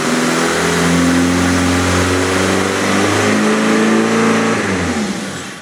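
Freshly rebuilt engine of a 1996 GMC Sonoma pickup running on its first start after the rebuild. It runs loud and steady for about five seconds, then is shut off and winds down near the end.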